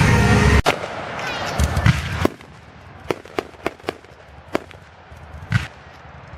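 Fireworks going off at a distance: about half a dozen sharp pops and bangs at uneven intervals.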